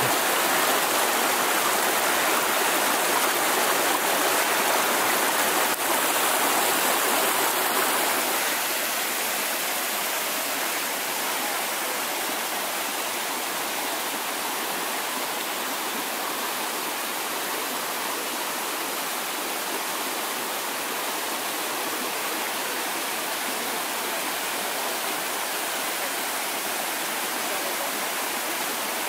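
Mountain brook rushing steadily over rocks, partly buried under snow. It is a little louder for the first several seconds, then settles slightly softer.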